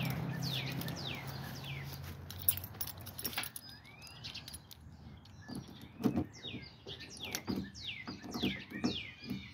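Birds chirping in short, repeated falling notes, busiest near the start and again in the second half, over a low hum that fades out over the first few seconds. From about halfway, irregular sharp clicks and jingling of a keyring being handled.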